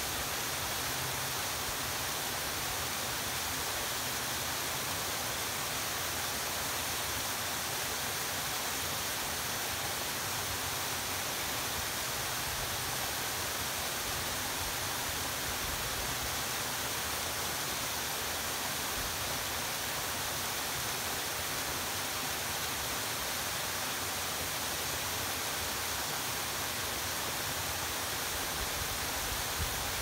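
Two-tiered mountain waterfall pouring down a rock face: a steady, even rush of falling water, mostly high hiss, without change.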